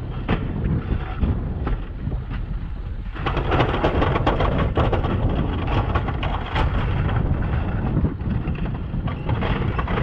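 Snowplow pickup truck driving on a snow-covered road, heard from a camera outside on the hood: low wind buffeting on the microphone with the truck's running underneath. From about three seconds in, a louder crunching and rattling with many small clicks comes in, typical of tyres on packed snow.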